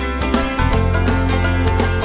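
Background instrumental music with plucked strings and a steady beat; a fuller bass comes in about half a second in.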